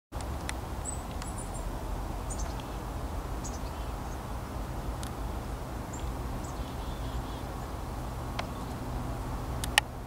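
Outdoor ambience: a steady low background rumble with scattered short, high bird chirps and tweets, and one sharp click near the end.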